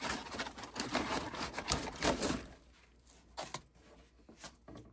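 Packaging inside the RC truck's box being handled and shifted: rustling and scraping for about two and a half seconds, then a few light clicks and knocks.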